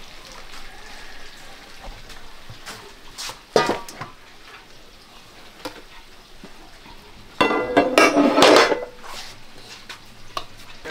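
Metal cooking pots clanking: a sharp ringing clang about three and a half seconds in, and a louder clattering, scraping run lasting about a second near the end, over a steady low sizzle of frying.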